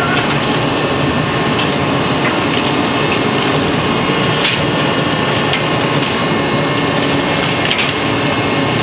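Harris HRB-1C baler running while it processes cardboard: a loud, steady machine drone with scattered sharp cracks and crackles of cardboard being crushed.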